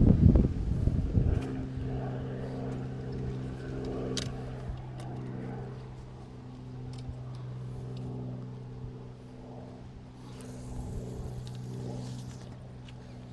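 Wind buffeting the microphone at the start. Then an engine drone sets in about a second in, holding one pitch with its overtones, with a few faint clicks along the way and a soft hiss near the end.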